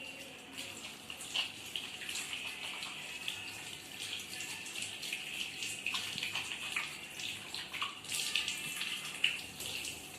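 Water running and splashing steadily, with many small irregular splashes.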